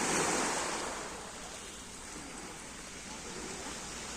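Sea surf washing onto the shore: a wave breaks in the first second and then eases off into a steady wash.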